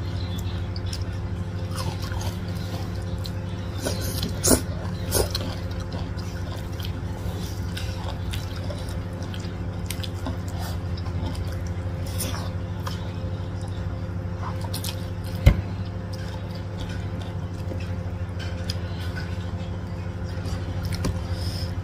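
Close-up eating sounds: wet mouth clicks and slurping of flat rice noodles, with fingers working through the noodles and rice, over a steady low hum. A few sharper clicks stand out, twice around four to five seconds in and once past the middle.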